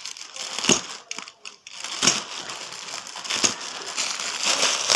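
Plastic courier mailer bag crinkling and rustling as hands work it open, with three sharp crackles: about a second in, two seconds in and three and a half seconds in.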